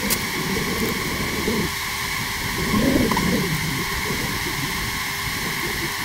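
Honey bees humming around an opened hive over a steady hiss, with two puffs of a bee smoker's bellows, about half a second and about three seconds in.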